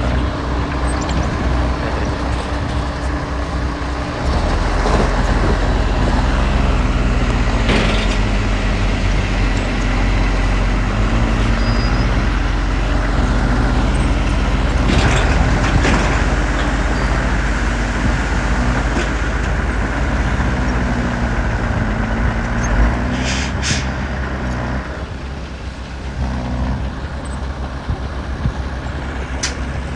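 Heavy diesel engine of an earthmoving machine running hard, its pitch rising and falling as it revs, with a few sharp knocks or hisses over the top.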